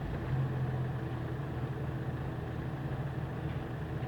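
Front-wheel-drive car running with a jacked-up front wheel spinning free, giving a steady low hum. The hum comes from the front wheel hub bearing and marks that side's bearing as the worn one.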